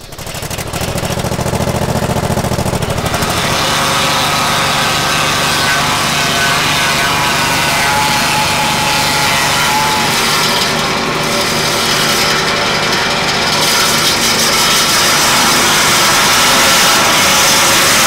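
Hydraulically powered sawmill running, its 27-horsepower hydraulic power unit's engine driving the main and secondary saw blades: a loud, steady mechanical din. A deep low rumble in the first few seconds gives way to a steadier, higher machine sound that grows a little louder near the end.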